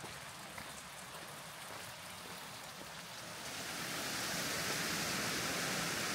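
Steady rush of falling water from a waterfall or stream, swelling about three and a half seconds in to a louder, even roar that holds.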